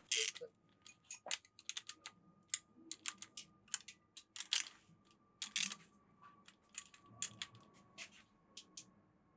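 Socket ratchet clicking in short, irregular runs as the nuts on the camshaft bearing caps of a VW 16V cylinder head are gradually snugged down by hand, with light taps of steel tool on metal.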